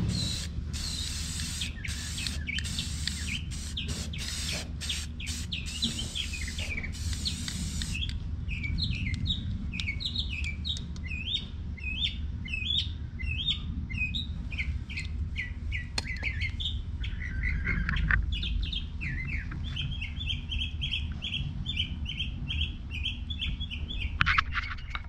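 Aerosol spray paint can hissing in short bursts with brief breaks for the first several seconds, while small songbirds chirp. Once the spraying stops, the birds' short chirps are the main sound, with a fast, even run of chirps near the end.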